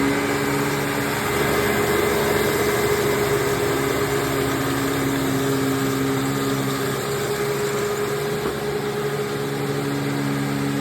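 Hoover WindTunnel Bagless Twin Chamber upright vacuum cleaner running steadily while vacuuming cat litter out of carpet: a steady motor hum over a rush of air.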